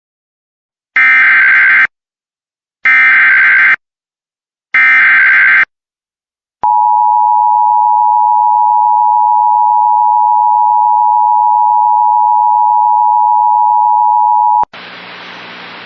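Emergency Alert System signal: three short bursts of SAME digital header data, each about a second long and evenly spaced, then the steady two-tone EAS attention signal held for about eight seconds, which marks the start of an emergency alert broadcast. A quieter hiss follows near the end.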